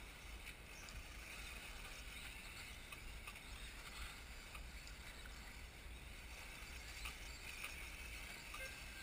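Faint, steady hiss of brushless electric 1/10 scale RC buggies racing around the track, with a low rumble underneath.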